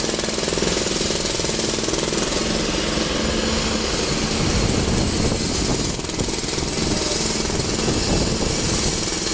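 Wirtgen slipform concrete paver's diesel engine running close by: a loud, steady, fast rattling drone with a steady high hiss above it.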